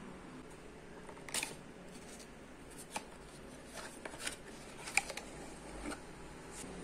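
Cardboard toothpaste box with a corrugated inner sleeve being opened by hand and the tube slid out: a handful of short, sharp crackles and taps of the cardboard, the loudest about five seconds in.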